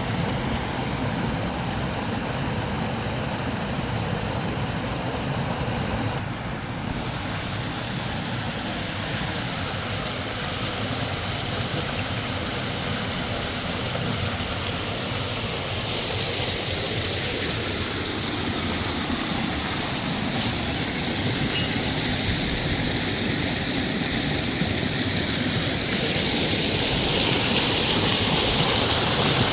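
Steady rushing of a river flowing over rocks. The tone of the rush shifts abruptly a few times, and it grows a little louder near the end.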